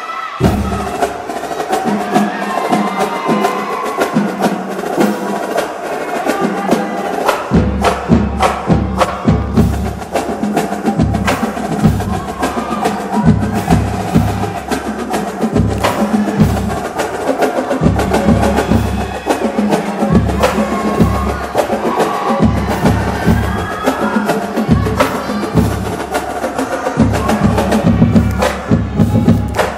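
Dance music with sharp percussive hits. A heavy bass beat comes in about seven and a half seconds in.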